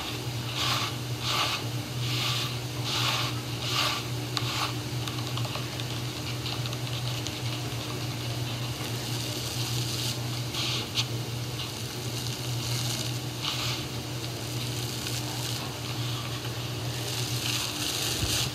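Dried crust of iceberg slime being pressed and poked, crackling and crunching in a run of short bursts about every half second, then a few more scattered ones, over a steady low hum.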